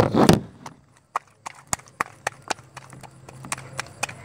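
Sticky homemade borax slime being squeezed and kneaded by hand: a short loud squelch at the start, then a string of small sharp clicks and pops, about three or four a second.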